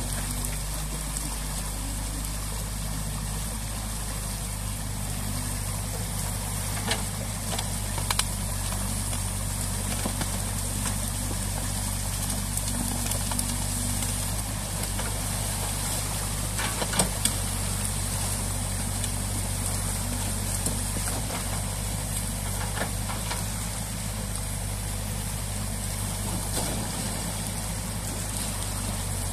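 New Holland Kobelco E 50.2 C mini excavator's diesel engine running steadily, over the rush of water pouring through the breached beaver dam. A few sharp knocks come about a quarter of the way in and again past the middle.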